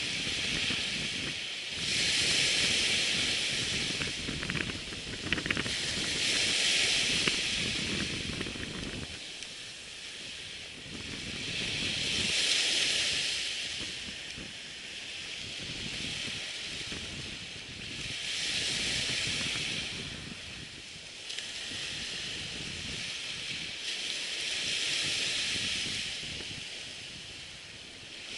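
Surf washing up a sandy beach, the hiss swelling and fading about every six seconds. Wind rumbles on the microphone for roughly the first nine seconds.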